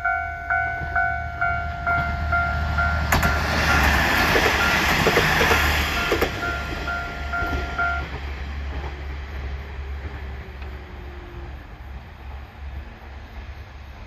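Japanese railway level-crossing warning bell ringing about twice a second while a diesel train passes over the crossing. The train's wheel noise is loudest from about three to seven seconds in, with a couple of sharp clacks. The bell stops about eight seconds in and the train's sound then fades away.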